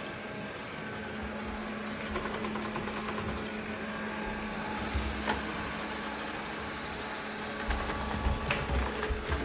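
Redmond robot vacuum cleaner running with a steady mechanical hum and whir, with scattered clicks and low knocks in the last couple of seconds.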